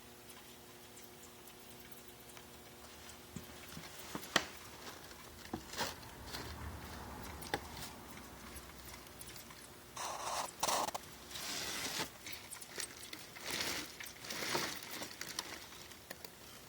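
A small animal trapped in a can, scrabbling: scattered taps and clicks, then louder scratching and rustling bursts about ten seconds in. A faint low hum stops about three seconds in.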